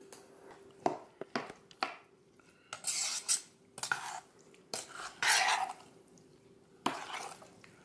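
A few sharp clinks as sugar is scooped in, then a fork stirring cranberry-orange relish in a stainless steel saucepan, scraping against the pot in several short strokes.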